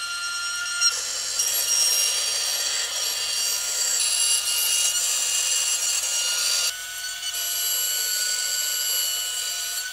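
A CNC 3040 router's spindle whines steadily at a high pitch while its small end mill cuts through a vinyl LP, with a dense rasping cutting noise over the whine. The cutting noise drops abruptly about two-thirds of the way through, leaving mostly the spindle whine.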